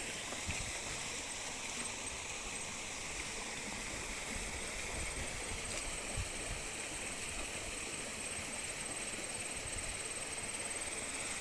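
Waterfall and stream water rushing steadily, with a thin high whine running above it.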